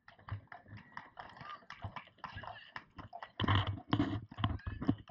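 Footsteps of sandals slapping on stone paving at a walking pace, a run of short sharp clicks. There is a louder burst of sound about three and a half seconds in.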